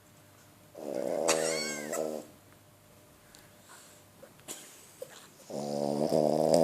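French bulldog snoring in her sleep: two long, buzzing snores, the first about a second in and the second near the end, with quiet breathing between them.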